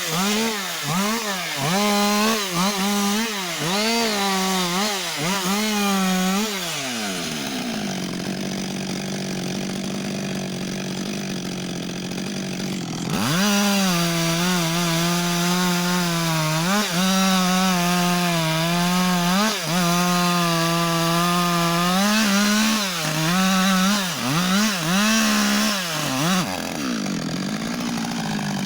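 Husqvarna 562 XP two-stroke chainsaw cutting wood, its engine pitch dipping and recovering again and again under load. The throttle drops back to a steady idle for several seconds about a third of the way in, then the saw revs up and cuts again before idling near the end.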